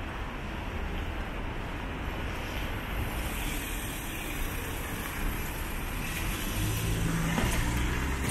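Street traffic: a steady rush of passing cars, with a heavier vehicle's low engine drone coming in about six and a half seconds in.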